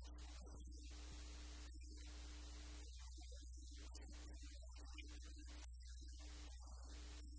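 Steady low electrical mains hum with a faint hiss that keeps cutting in and out; no speech is heard.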